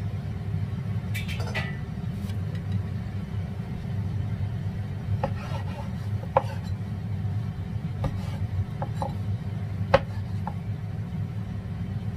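Cleaver cutting through a fried minced-fish patty, its blade knocking on a bamboo cutting board several times at uneven intervals, the loudest knock near the end, over a steady low hum.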